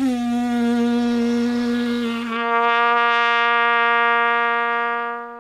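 pTrumpet (plastic trumpet) playing one long held low note, scooping briefly up into pitch at the start and holding steady for about five seconds. The low note is made by relaxing the lips and blowing less.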